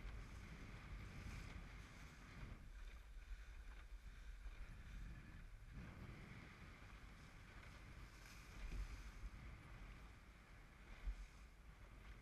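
Faint, gusting wind buffeting the microphone and water rushing along the hull of a small open sailboat under way in strong wind, with a louder gust about nine seconds in and a short bump near the end.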